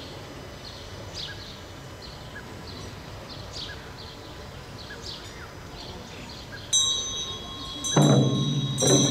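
Small birds chirping over a quiet background, then Tibetan Buddhist ritual cymbals start ringing with a high sustained tone about two-thirds of the way in. Near the end, frame drums and cymbals are struck loudly together twice, each stroke ringing on.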